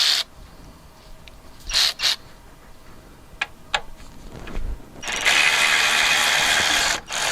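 Cordless electric ratchet driving out self-tapping screws: a couple of short bursts about two seconds in, a few light clicks, then a longer steady run of about two seconds starting about five seconds in.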